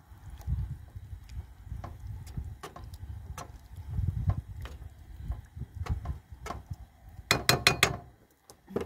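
A metal slotted turner stirring chicken and tomatoes in a wok-style frying pan, with irregular knocks and scrapes against the pan about twice a second over a low rumble. Near the end comes a quick run of four sharp taps as the turner is knocked on the pan.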